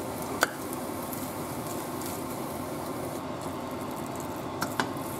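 A white plastic spoon scooping sticky biko rice from a pot into a ceramic baking dish: one sharp tap about half a second in and a couple of lighter knocks near the end, over a steady hiss.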